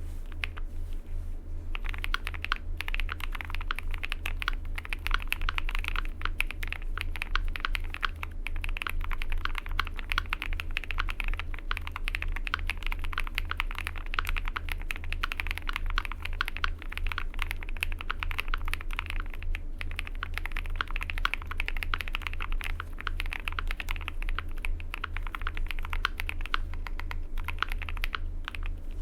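Fast, continuous typing on an AL75 custom mechanical keyboard with lubed Chaosera Cupid linear switches, an FR4 plate, a two-layer tape mod and PBT double-shot cherry-profile keycaps. It starts about two seconds in as a dense run of keystrokes.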